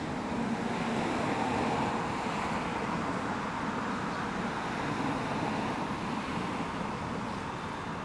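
Road traffic going by: a steady hum of passing cars, a little louder in the first couple of seconds.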